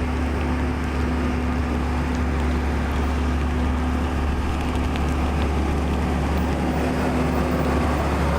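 An engine running steadily at a constant pitch, with a deep hum and an even rushing noise over it.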